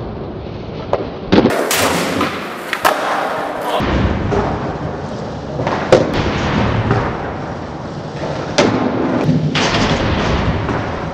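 Skateboard wheels rolling on pavement, broken by several sharp clacks of the board popping and landing, about five over the stretch.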